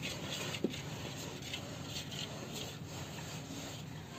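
Dry masala powder being stirred in a steel bowl: a soft, steady rubbing and scraping.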